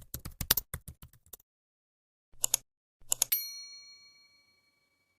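Intro sound effect: a quick run of keyboard-typing clicks, two short bursts of clicks a little later, then a bell-like ding about three seconds in that rings out and fades over a second and a half.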